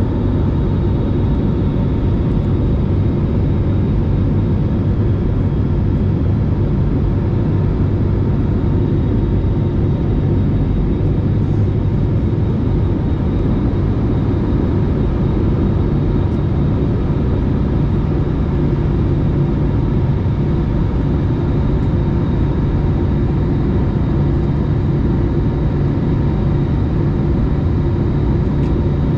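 Airbus A320-family airliner's jet engines running, with air rushing past, heard inside the cabin beside the wing as the plane climbs after takeoff. A steady, unchanging drone with a few faint steady tones on top.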